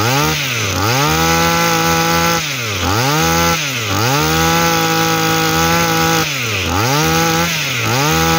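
Tanaka TBC-247D 24cc two-stroke brush-cutter engine running, revved up and down by hand at the carburettor's throttle lever: it holds high revs for a second or two, drops briefly and picks up again several times. The engine runs smoothly, which the seller calls quite good.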